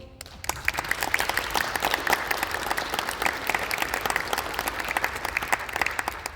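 Audience applauding after a piece ends: many hands clapping, starting just after the music stops and dying away near the end.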